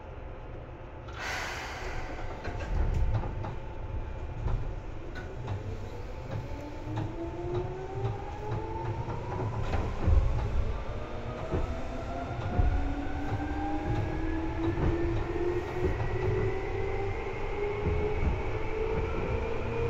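Seibu 2000 series electric train pulling away and accelerating, heard from inside the car above the line breaker. There is a short hiss about a second in, then a heavy wheel-and-rail rumble with knocks, and several motor and gear whines rising steadily in pitch.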